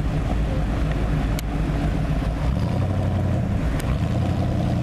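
Early-1960s Chevrolet Corvette's V8 engine running at low cruising speed as the car approaches, its low note growing stronger a little past halfway as it draws near.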